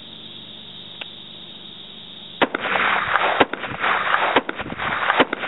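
AR-15-style rifle with a standard A2 flash hider firing a rapid, uneven string of shots beginning about two and a half seconds in. A faint click comes about a second in.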